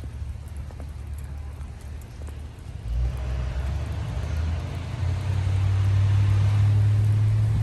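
A motor vehicle's engine hum comes in about three seconds in and grows louder, loudest near the end, with tyres hissing on the wet road.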